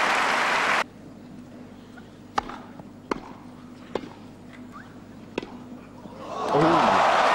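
Crowd applause that cuts off abruptly, then four sharp racket-on-ball strikes of a tennis rally on a grass court over a faint steady hum, then crowd applause swelling up again near the end.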